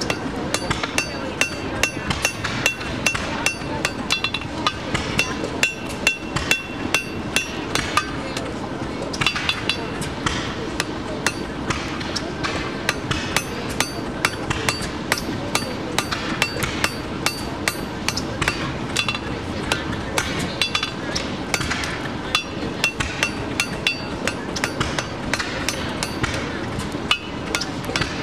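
A hand hammer strikes a red-hot steel bar on an anvil in a steady run of blows, about two to three a second, with the anvil ringing after the strikes. This is hot forging of an agricultural draft horseshoe.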